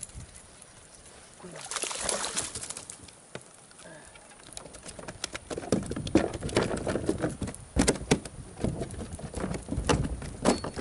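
A bass being fought to a plastic fishing kayak: a reel being cranked, with scattered knocks and clatter against the hull. It is fairly quiet at first, with a noisy rush about two seconds in, and turns busier and louder with many sharp knocks from about halfway.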